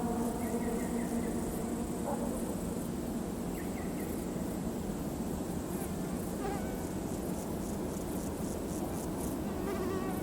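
Steady, even rumble of a loaded freight train hauled by an M62 diesel locomotive running past at speed, just after its horn has stopped. Faint high chirps and ticks come over it now and then.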